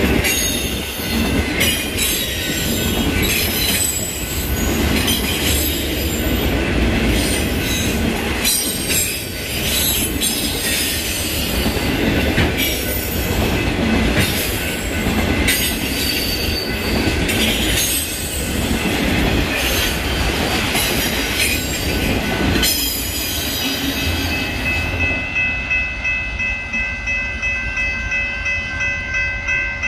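BNSF freight train of autorack cars rolling past close by: a heavy rumble with the clack of wheels over rail joints and a high screech from the wheels. About 23 seconds in it cuts to a level crossing, where the train is going away and a crossing bell rings about twice a second.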